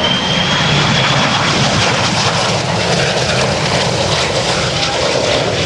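Sea Harrier FA2 jet with its Rolls-Royce Pegasus engine flying by, loud and steady. A thin high whine over the heavy jet noise fades out about a second in.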